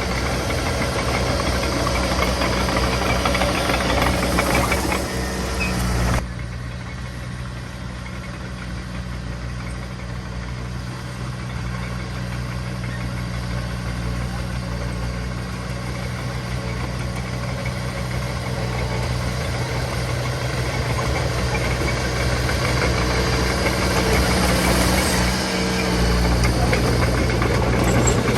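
Diesel engine of heavy earthmoving machinery running. About six seconds in, the louder, noisier sound cuts off abruptly to a quieter engine hum, which gradually grows louder again.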